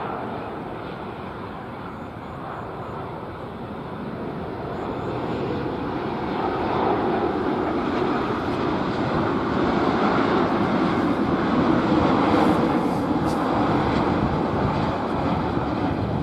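Boeing 787-9 airliner on final approach with its landing gear down: the steady rushing noise of its jet engines grows louder over several seconds as it passes close, peaks about two-thirds of the way through, then eases slightly.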